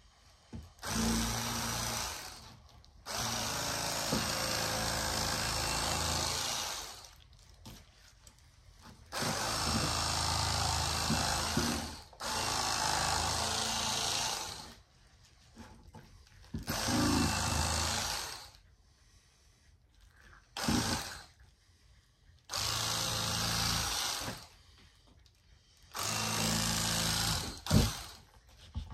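Battery-powered electric fillet knife running in repeated bursts of one to four seconds, about eight times, as its blade saws fillets off a panfish. The motor's buzz cuts in and out with each pass, and a short click comes near the end.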